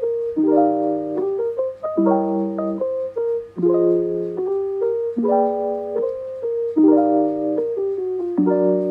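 Background music: piano chords, a new chord struck about every second and a half.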